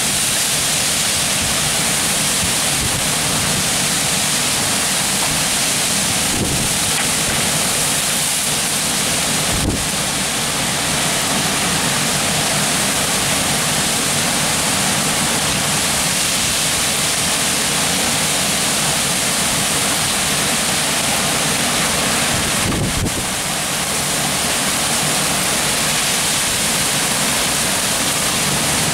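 Downburst storm: torrential rain and strong wind make a loud, steady rushing hiss. Gusts buffet the microphone with brief low thumps a few times.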